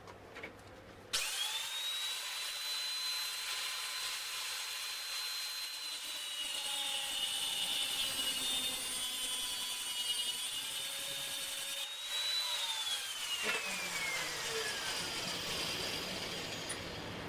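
Angle grinder with a cutoff disc starts about a second in and runs with a steady high whine while cutting through a threaded screw; the whine wavers and dips under the load of the cut in the middle. Near the end it is switched off and winds down in a long falling whine.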